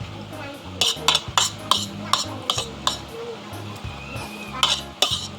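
Cutlery clinking and scraping against a plate while eating, about nine short, sharp clinks at irregular intervals.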